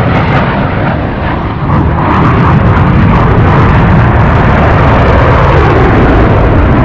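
Loud jet noise from an F-35 Lightning II's single Pratt & Whitney F135 afterburning turbofan as it flies over. It dips a little, then swells about two seconds in and holds steady.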